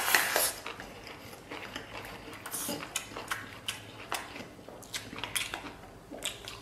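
Close-up mouth sounds of a man eating rice with chopsticks from a stainless-steel bowl: chewing and biting, with many short clicks of the chopsticks against the bowl.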